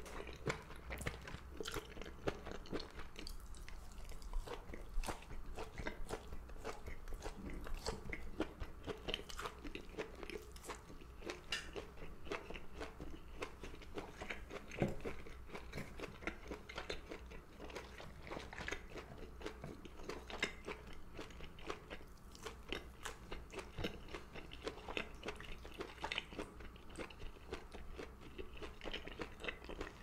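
Close-miked chewing of cooked gondre greens (Korean thistle), a run of many quick, wet mouth clicks and soft crunches.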